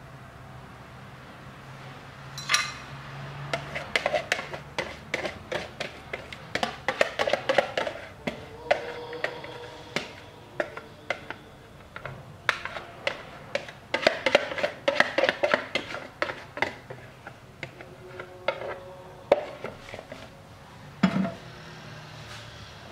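A ceramic mixing bowl being scraped and knocked as thick pumpkin batter is emptied out of it. The scrapes, clicks and knocks come irregularly, some with a short ring.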